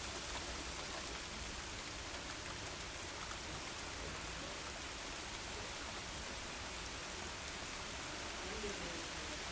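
Steady rain falling, an even hiss without thunder.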